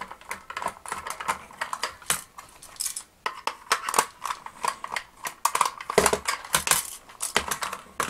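Small screwdriver backing a screw out of the hard plastic body of a Kenner M.A.S.K. Switchblade toy: a run of irregular small clicks and scrapes as the driver turns and the plastic is handled, with a few louder knocks near the end.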